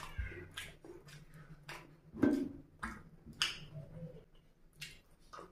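Wet squishing and smacking clicks of eating by hand: fingers squeezing and mixing food in a glass bowl of mutton gravy, with lip smacks. About eight short clicks, the loudest a little over two seconds in.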